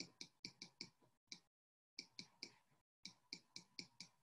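Faint clicks of a stylus tapping on a tablet screen while handwriting, in short runs at about five a second with a brief pause in the middle.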